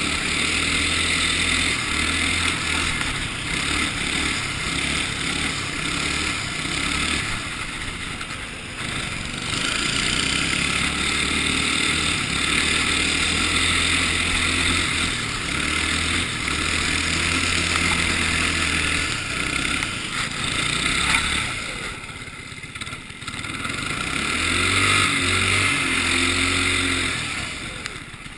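Ice kart's engine running under throttle, heard from the kart itself, its pitch rising and falling through the corners, with a steady hiss over it. The engine eases off briefly about three-quarters of the way through, then picks up again.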